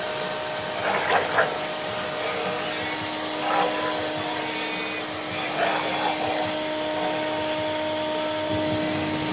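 Steady whooshing hiss throughout, with a few short growls from two dogs playing tug of war over a tire toy.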